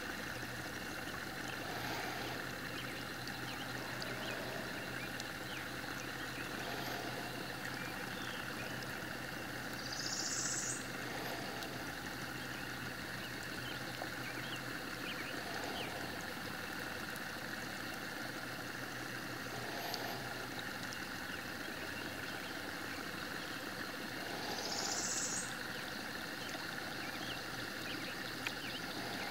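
Wonderduck Heads Up carousel decoy running on the water: the small motors of its two motorized mallard drakes hum steadily as their propellers churn the water, with a soft pulse every four to five seconds. Twice, a short, bright, rising sound stands out above the hum.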